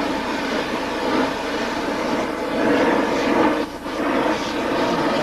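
Gas welding torch with a big flame burning steadily as it heats a steel pipe toward red hot for bending. The level dips briefly a little past the middle.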